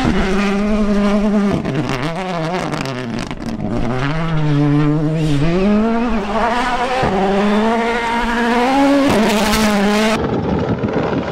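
Ford Puma Rally1 car's turbocharged four-cylinder engine revving hard as the car slides on loose gravel. Its pitch climbs and drops sharply several times with the gear changes and lifts.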